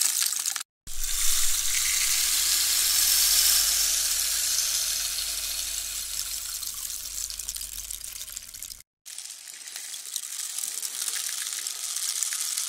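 Rain sound-effect samples from a drum kit's percussion folder, previewed one after another. A brief burst of hiss, then a long rain hiss with a low hum under it that fades over about eight seconds and cuts off, then a second rain hiss.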